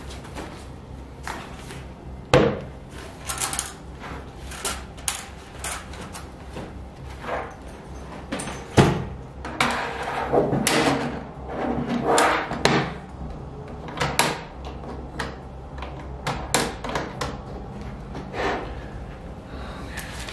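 Handling noises: a soft fabric bag rummaged and a plastic Guess Who game board taken out and set down on a wooden table, with scattered knocks and clatters, the sharpest a few seconds in and just under halfway. Later comes a run of short plastic clicks as the board's flip-up card frames are raised.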